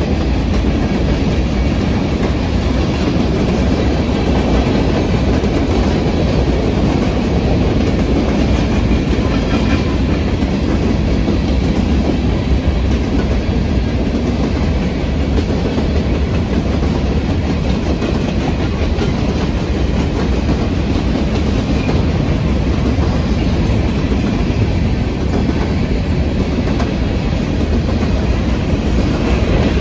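Empty covered hopper cars of a CN freight train rolling past, a steady rumble with the clickety-clack of steel wheels over the rail joints.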